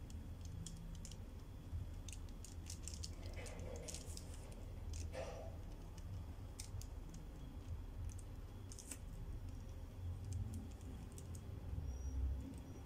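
Pencil scratching and tapping on tracing paper in short irregular strokes as a red pencil goes over the lines of a drawing to transfer it. A low steady hum runs underneath.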